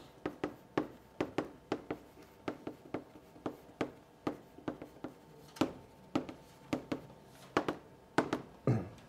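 Chalk tapping and scraping on a blackboard as characters are written by hand: a string of short, irregular clicks, a few each second.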